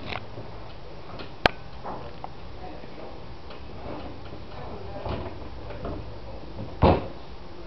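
Scattered small clicks and knocks of hand work at a wooden cabinet, with one sharp click about a second and a half in and a heavier knock near the end, over a steady low hum.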